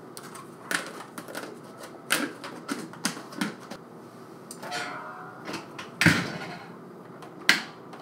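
Small plastic clicks and knocks as a tub of dishwasher packs is handled. About six seconds in, the dishwasher door is swung shut with a loud thud, and a sharp latch click follows near the end.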